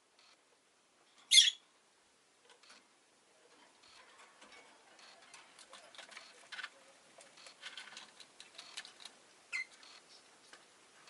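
Rosy-faced lovebird giving a single short, sharp chirp about a second in and another near the end, with many faint, quick clicks and ticks in between.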